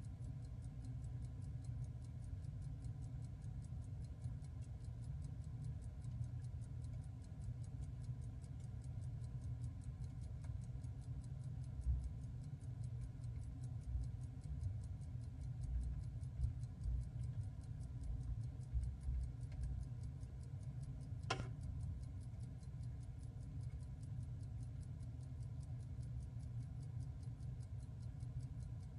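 23-jewel Hamilton 950E railroad pocket watch ticking in a fast, even rhythm over a low hum. A single sharp click about two-thirds of the way through.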